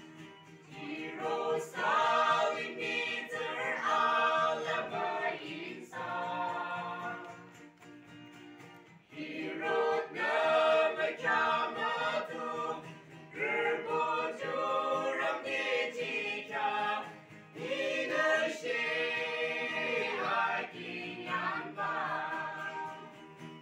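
A small vocal group singing a gospel song together, in phrases of a few seconds with short breaks between them.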